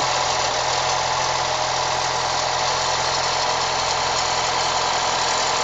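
Turbocharged car engine idling from cold with a steady metallic rattle, which the owner puts down to the new Garrett turbocharger.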